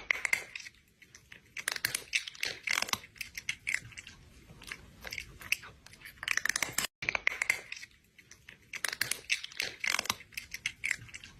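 A cat chewing food noisily, with irregular crunching bites. The same stretch of chewing starts over about seven seconds in.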